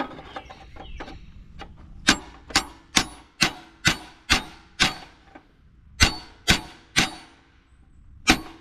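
A hammer striking the bent steel frame of a stump grinder to straighten it, about eleven blows at roughly two a second with a short pause midway, each with a brief metallic ring.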